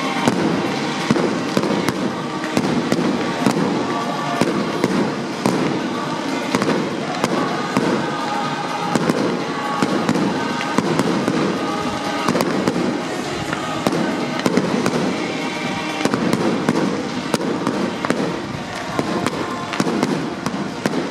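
Fireworks display: many sharp bangs and cracks a second, keeping up without a break, from aerial shells and crackling effects.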